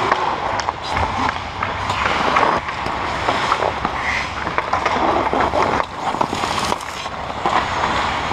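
Ice hockey skate blades scraping and carving the ice close by, with scattered clicks and knocks from sticks and puck.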